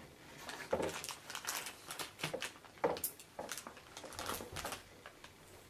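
Plastic bag crinkling and rustling as it is handled, with irregular short clicks and taps.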